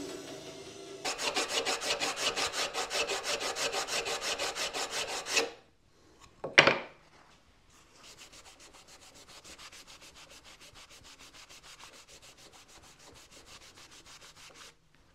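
A rag rubbing quickly back and forth on a wooden board, wiping glue from around freshly driven pegs. The bandsaw hum dies away in the first second, there is one sharp knock about six and a half seconds in, and the rubbing then goes on more quietly.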